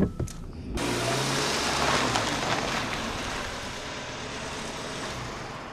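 A compact sedan drives along a paved drive, its engine running and tyres rolling over the pavement. The sound sets in abruptly about a second in and slowly fades as the car slows.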